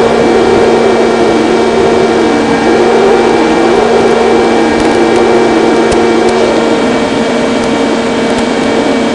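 Electric motor and propeller of a battery-powered FPV model plane running steadily in flight, heard through a microphone on board. A wavering whistle of wind rises and falls in pitch over it and dies away about seven seconds in.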